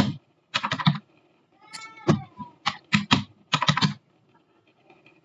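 Laptop keyboard keys being typed in quick bursts of a few strokes each, as a password is entered. About two seconds in there is one brief wavering pitched cry.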